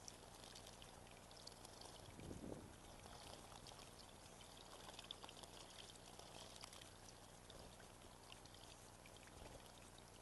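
Faint steady trickling water in a garden bird-bathing pool, with small scattered splashes and drips from bathing birds; a brief louder splash about two seconds in.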